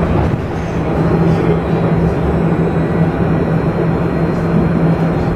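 Alstom Citadis tram running along its line, heard from inside the passenger cabin: a steady rumble of the moving car with a steady low hum underneath.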